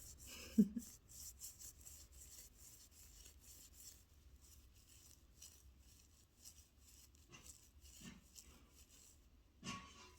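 Toothbrush bristles scrubbing in quick, repeated strokes. There is a soft thump about half a second in, and another near the end.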